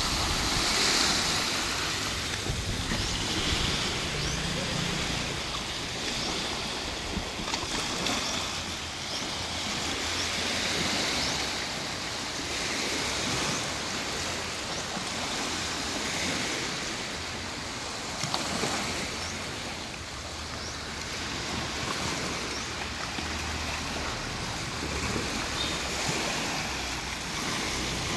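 Small sea waves breaking and washing up the shore, a steady wash of surf that swells and eases every few seconds.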